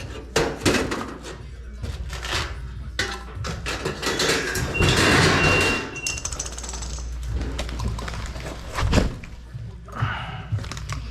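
Knocks, taps and clatter of steel stud framing work, with a louder thump about nine seconds in, over background music.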